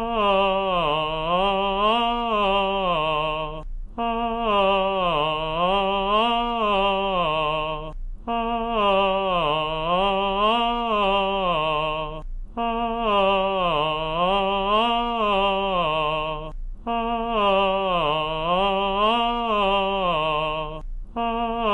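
A single voice singing a smooth, legato vocal exercise. Each phrase of about four seconds glides down and back up in pitch twice, and the phrase is repeated about five times with a quick breath between repeats.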